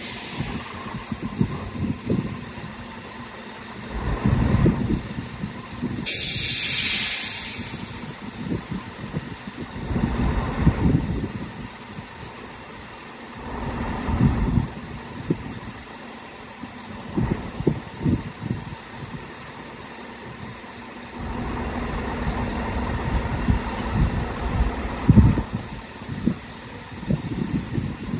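ScotRail Class 170 Turbostar diesel multiple unit standing at the platform with its underfloor diesel engines running, a low rumble that swells and fades several times. About six seconds in comes a loud hiss of air lasting about two seconds.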